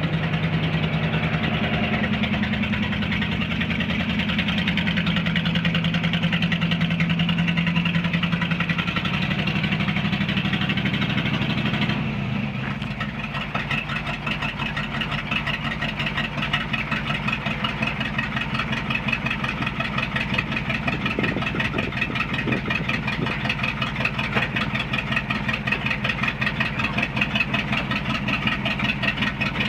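Engine of a 1973 Ford 600 dump truck running steadily. About twelve seconds in its tone changes and it becomes a little quieter, then runs on evenly.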